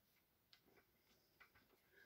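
Near silence with a few faint, short clicks from a tool and hands working on the opened plastic housing of a cordless SDS hammer drill.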